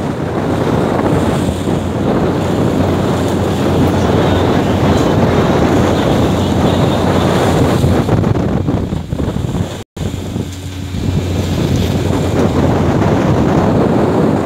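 Heavy wind buffeting the microphone over rough sea, with waves breaking and rushing white along a fishing boat's hull and a steady low hum from the boat underneath. The sound drops out for an instant about ten seconds in.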